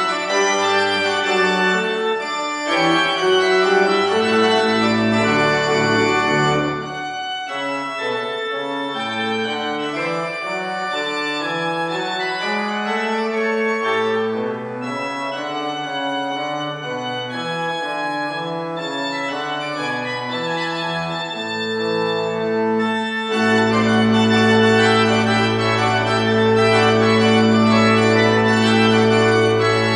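Church organ playing a slow anthem in sustained chords on a two-manual console, with no voices. About seven seconds in it drops to a softer passage, and near the end it builds to a louder, fuller chord held over a deep bass note.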